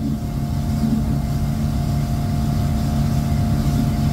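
Motorboat engine running steadily at speed, with the rush of wind and water over it.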